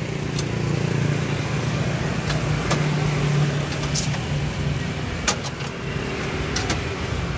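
Electric cup sealer machine sealing a plastic drink cup: a steady motor hum with several sharp clicks, the hum loudest about three seconds in. Road traffic runs underneath.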